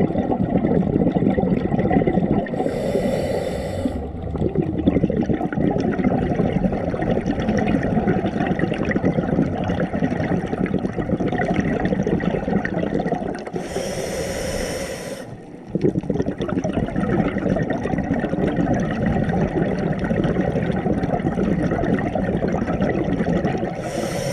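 Scuba diver breathing through a regulator underwater: a long stretch of bubbling exhaust between short hissing inhalations, which come about ten seconds apart, three times.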